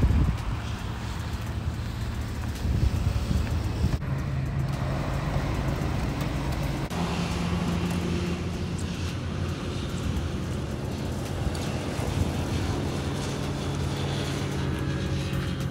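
Motor vehicle sound: a motor scooter and traffic on the road alongside, heard as a steady low engine hum, with a few louder bumps in the first three seconds.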